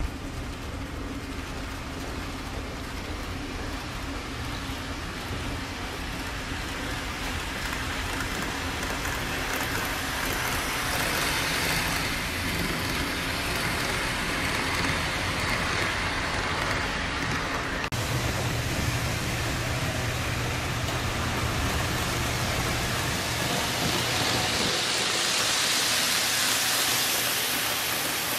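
Model trains running on the layout's track: a steady rushing noise of small wheels on rail and motors, over a low hum that shifts about two-thirds of the way through. The rush swells near the end as a train passes close.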